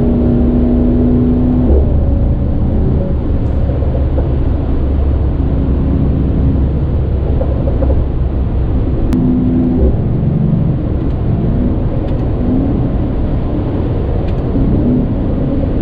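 Mercedes-AMG GT43's turbocharged inline-six on its stock exhaust, heard from inside the cabin at highway speed: a steady low engine drone under road and tyre noise. The engine note shifts several times as the revs drop and rise.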